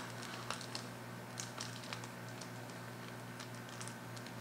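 Faint crinkles and small clicks of thin clear plastic packaging being handled and pulled open by fingers, scattered irregularly over a steady low hum.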